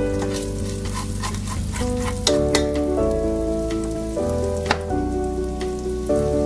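Bacon frying in its own rendered fat in a stainless steel pot, crackling steadily, with a few sharper pops.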